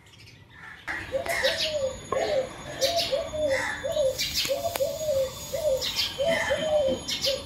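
Dove cooing: a run of short low coos, about two or three a second, starting about a second in, with small birds chirping higher up.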